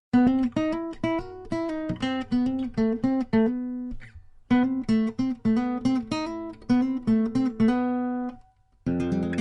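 Background music: a plucked acoustic guitar melody played note by note in short phrases. It pauses briefly about four seconds in and again near the end, then comes back with a fuller strummed section.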